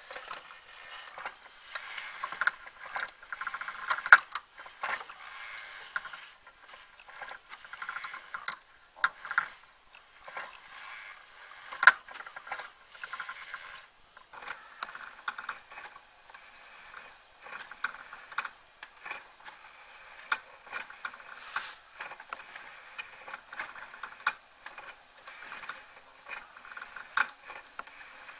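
Homemade coil-winding machine built with gears taken from sewing machines, running as it winds copper wire: its gears and wire-feed mechanism give a steady light rattle with irregular ticking and a few sharper clicks.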